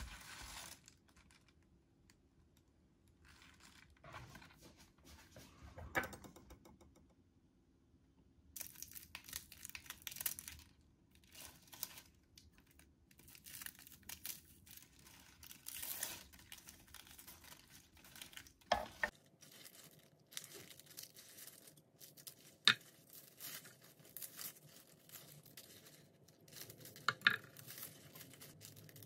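A bunch of fresh spinach being handled: leaves rustling and stalks being torn apart, and a knife trimming the root ends, with a few sharp knocks.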